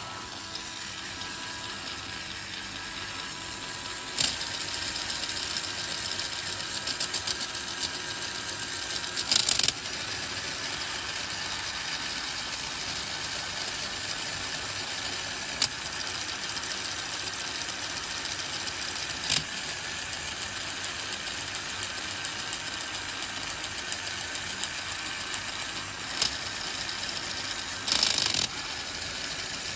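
LEGO Technic gearbox driven by an electric LEGO motor, its plastic gears and axles running with a steady whirring rattle that gets a little louder about four seconds in. Sharp clicks come now and then, with two short louder clatters, one about ten seconds in and one near the end.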